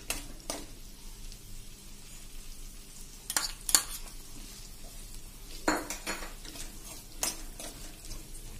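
A steel spoon stirring and scraping peas, carrots, peanuts, cashews and coconut pieces as they sauté in oil in a kadai, over a soft sizzle. Every second or two the spoon knocks sharply against the pan.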